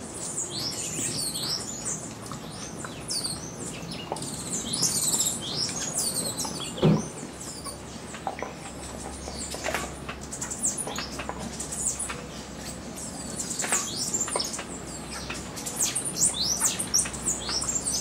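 Hummingbirds and bananaquits at nectar feeders: many short, high, downward-sweeping chirps and squeaks over a low whirr of wings. A single short thump about seven seconds in is the loudest sound.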